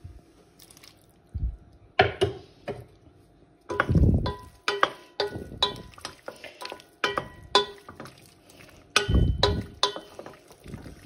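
Wooden spoon stirring pasta and vegetable sauce in a stainless steel pot, knocking and scraping against the pot's sides at an irregular pace; several knocks leave the pot ringing briefly. Two heavier, duller thumps come about four and nine seconds in.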